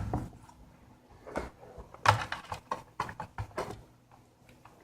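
Light, scattered clicks and knocks of hands and a screwdriver working on a laptop's plastic bottom cover, about five in a few seconds.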